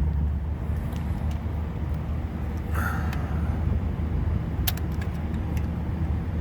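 Steady low hum of running machinery, with a few small clicks and a brief rustle as wire terminals are pulled off a compressor's terminals.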